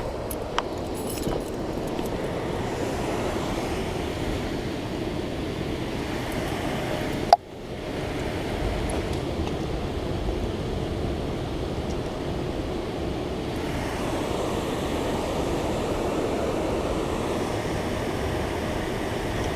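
Steady rushing of water flowing heavily through a spillway. A sharp click comes about seven seconds in, with a brief dip in the sound right after it.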